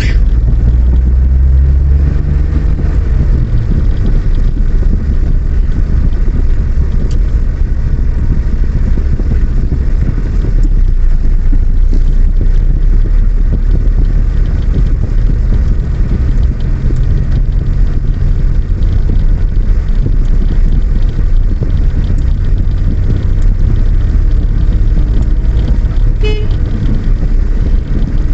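Steady low rumble of a vehicle on the move, engine and road noise, with a brief high beep near the end.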